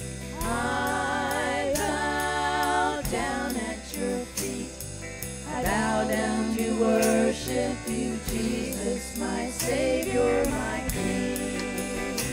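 Live worship band playing a slow praise song, with voices holding long, wavering notes over sustained instruments and a steady light beat.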